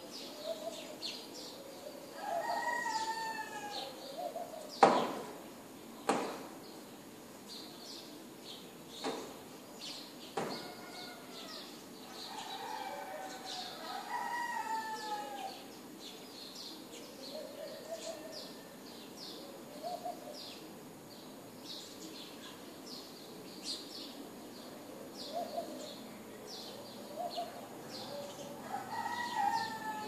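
Roosters crowing again and again, a crow every few seconds, over a steady chatter of small birds chirping. A few sharp knocks cut through, the loudest about five seconds in.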